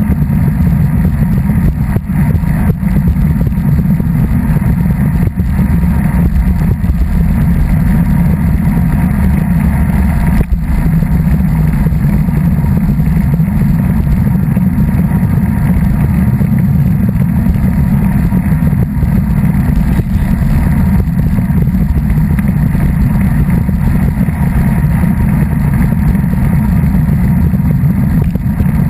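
Steady wind buffeting on a ride-mounted camera's microphone moving along a road, a loud low rumble with no clear engine note.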